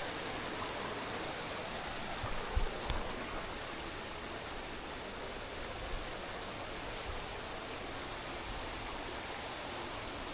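Fast-flowing river water rushing steadily, with a few low thumps a little over two seconds in.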